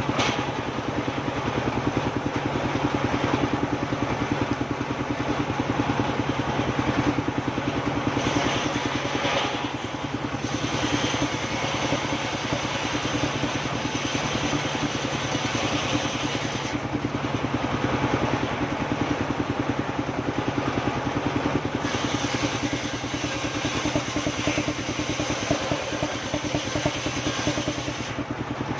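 Engine of a sawmill running steadily while sengon wood is sawn, with two long stretches of added high-pitched sound, about a third of the way in and again near the end.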